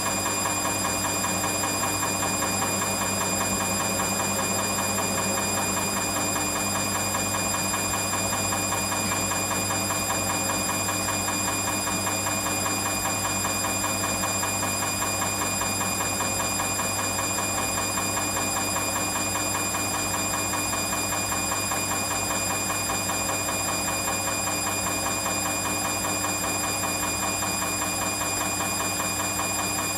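Washing machine running steadily, an even motor hum with a constant whine over it that does not change.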